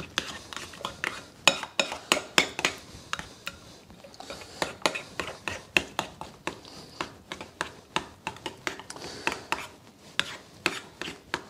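A spoon stirring thick tomato sauce and paste in a glazed ceramic bowl, with irregular clinks and scrapes against the bowl's side, a few a second.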